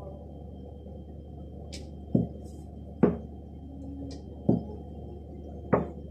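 Four sharp kitchen-utensil knocks, irregularly about a second apart, during hand-making of momo dumplings, over a steady low hum.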